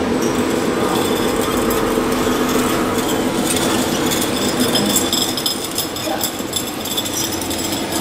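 Remote-controlled scale-model CAT soil compactor driving over dirt: a steady mechanical hum with scattered light clicks and clinks.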